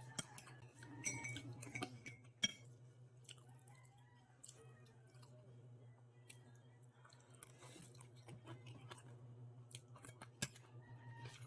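A person chewing food close to the microphone, with soft wet mouth noises and a few sharp clicks, the loudest about two and a half seconds in and near the end, over a steady low hum.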